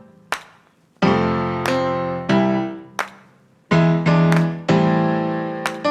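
Piano music: chords struck and left to fade, with short near-silent gaps between them.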